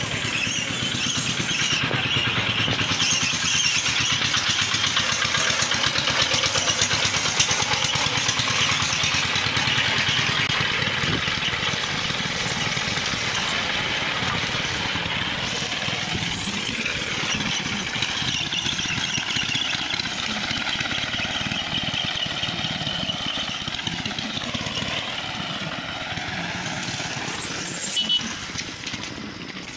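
Street noise heard from a moving bicycle: steady rolling road noise with motor traffic running nearby, an engine's pitch sliding up and down in the middle stretch.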